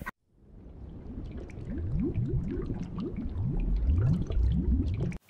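Underwater bubbling and gurgling, a run of short rising gurgles that grow louder toward the end, over faint crackling clicks.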